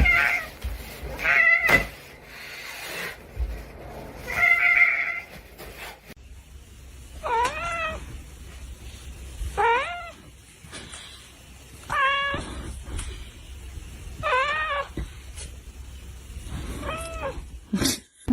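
Domestic cat meowing repeatedly: a few short meows in the first several seconds, then five drawn-out meows that rise and fall in pitch, about two and a half seconds apart.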